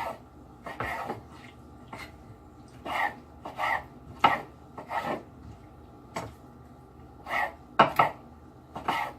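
A kitchen knife cutting through raw squid onto a cutting board: about a dozen short, irregular chopping strokes.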